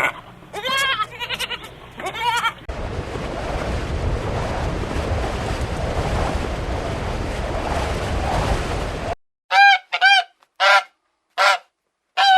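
Geese honking: first a run of calls over a steady noisy background, then, from about three quarters of the way in, a string of single clear honks against silence, about one every 0.7 seconds.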